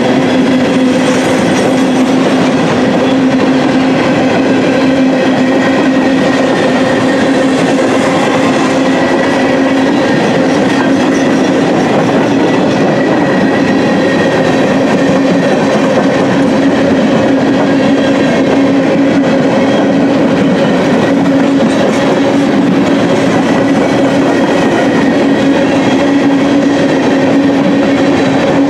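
Freight train's flatcars rolling past: a steady, loud rumble and clatter of steel wheels on rail, with a constant hum running through it.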